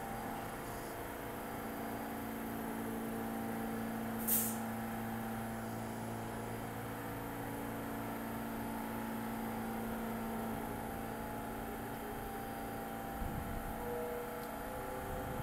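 R46 subway train standing in the station, its equipment humming steadily, with a short sharp air-brake hiss about four seconds in. The hum drops away about ten seconds in, and a low rumble comes near the end.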